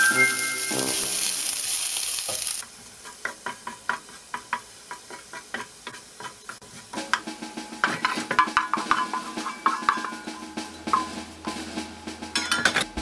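Sliced garlic frying in oil in a black frying pan, stirred with a wooden spatula that clicks and scrapes against the pan in quick uneven taps over a light sizzle, cooking toward golden brown. The sizzling and tapping grow busier about halfway through. Background music plays for the first couple of seconds.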